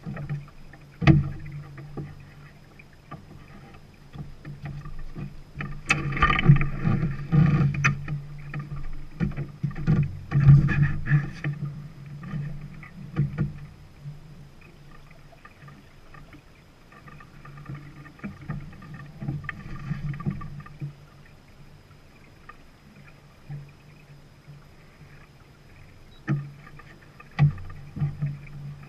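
A sailing yacht under way: water rushing and slapping along the hull, swelling louder in stretches, with a few sharp knocks and clicks from deck gear.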